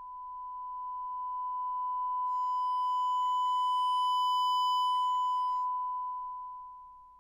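A steady 1 kHz sine test tone, recorded through an ASUS Xonar U7 USB sound card, swells louder and then fades away. Around its loudest stretch, from about two to almost six seconds in, it turns harsh as distortion sets in: the recording chain is reaching its distortion limit.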